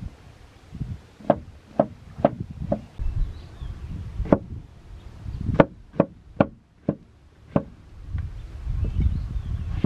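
A blade chopping on wood, about nine sharp strikes at an uneven pace, some in quick runs and some with pauses between them.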